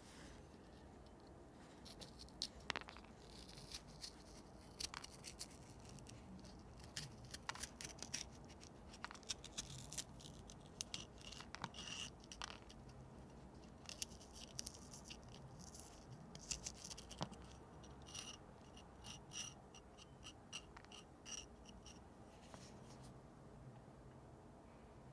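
Steel spoon blade of an old Ontario Knife Co. spoon knife scraping the seeds and white ribs out of a halved jalapeño pepper: an irregular run of quiet, crisp scratches and clicks with a few short squeaks, stopping a few seconds before the end.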